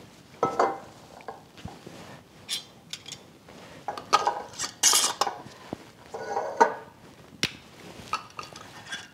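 Metal screw bands being twisted onto glass canning jars of broth, with short scrapes of the threads and several clinks and knocks as the jars and bands are handled on the counter.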